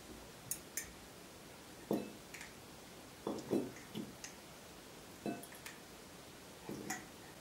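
A fork scraping and clinking against a glass jar as canned chickpeas and pork are scooped out into a ceramic bowl: about ten faint, irregular clinks and taps, with food dropping into the bowl.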